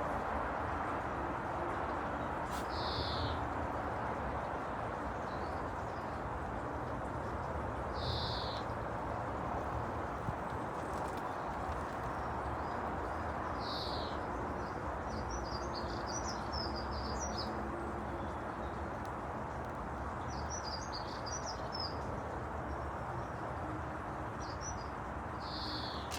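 Birds singing: one bird repeats a single short high note about every five or six seconds, and bursts of quick twittering chirps come in a few times in the second half, over a steady rushing background noise.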